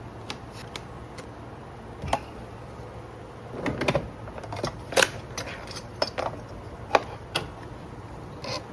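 Irregular clicks and knocks, about a dozen, the loudest two about five and seven seconds in, as hard parts are handled.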